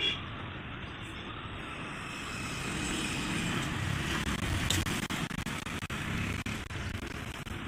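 Road traffic going by: the noise of a passing motor vehicle swells about two and a half seconds in, with scattered light clicks and knocks in the second half.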